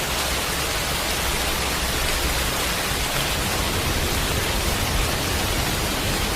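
Steady, even hiss of hurricane rain and wind, with a low rumble underneath and no change in level.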